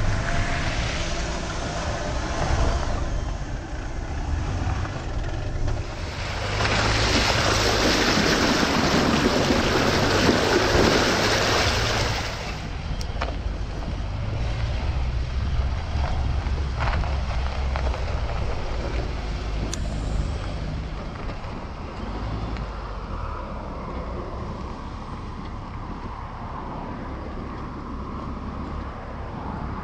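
2018 Dacia Duster 4x4 driving off-road, its naturally aspirated 1.6-litre petrol engine running steadily under a rush of road and wind noise. A louder rushing noise swells about seven seconds in and lasts about six seconds.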